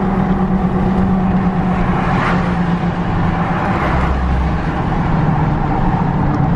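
Steady low drone of a Ford 6.0 Powerstroke V8 turbo-diesel with a straight-piped exhaust, heard inside the cab of a 2006 F-250 cruising on the highway, mixed with tyre and road noise.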